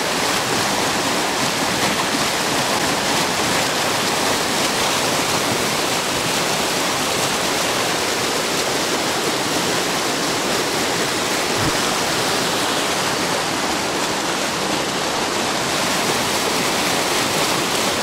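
Mountain river running fast: a steady, loud rush of water with no change from start to end.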